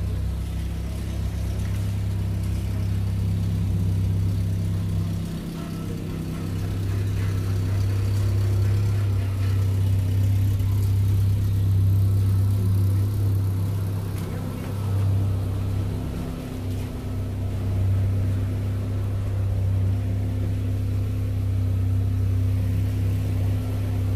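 Steady low engine hum of a motor vehicle running, dipping briefly twice.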